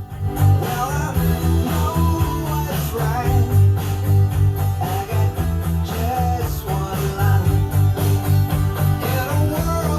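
Rock music with guitar, a pulsing bass line and singing.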